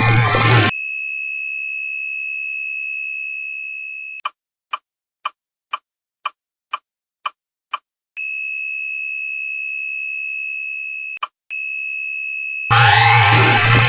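A steady high-pitched electronic alarm tone that fades slightly and then cuts off. About eight short ticks follow, roughly two a second, then the steady tone sounds again with one brief break.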